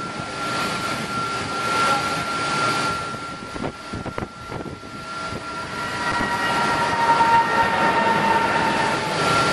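Jet engine noise: a steady hiss with a steady high whine. The sound dips briefly with a few clicks around four seconds, then comes back with more whine tones joining from about six seconds.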